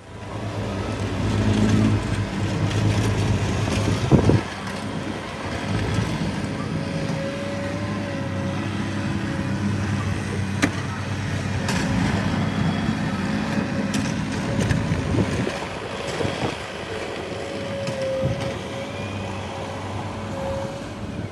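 An engine running steadily, with a wavering whine above it from about a third of the way in.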